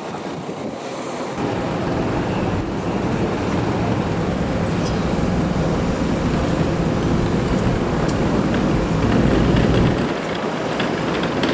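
Airport apron bus driving, a steady low engine and road rumble heard from inside; it eases off about ten seconds in as the bus slows.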